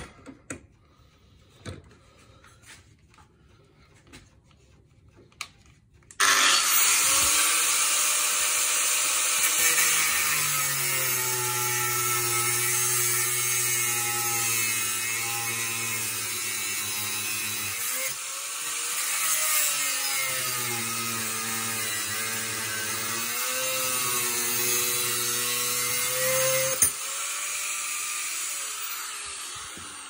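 Handheld power grinder cutting into the aluminium arms of a bicycle crank spider, the metal held in a vise. It starts suddenly about six seconds in after a few light handling clicks. It runs loud with a harsh hiss, its motor pitch sagging and recovering as it is pressed into the metal, eases briefly about two-thirds of the way through, and stops just before the end.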